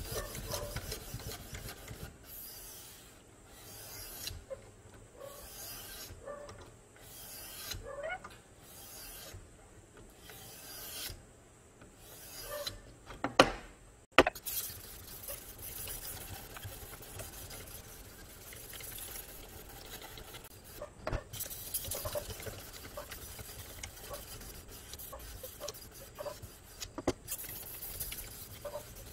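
Sharpening stone on a guided-rod knife sharpener rasping along the edge of a 440C stainless steel blade in repeated hand strokes, about one a second at first. About halfway through come two sharp knocks, then quicker, almost continuous strokes.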